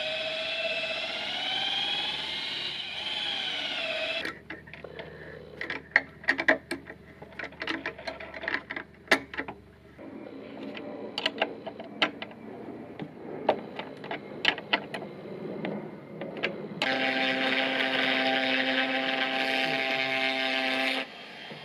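Cordless drill boring into a timber beam, its motor pitch wavering under load, then stopping after about four seconds. Irregular sharp clicks and knocks of a ratchet wrench tightening a bolt follow. Near the end an electric router runs at a steady pitch for about four seconds and cuts off suddenly.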